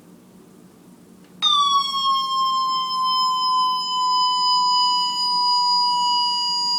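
Toy cash register giving one long, loud electronic beep that starts suddenly about a second and a half in, dips slightly in pitch at first, then holds steady.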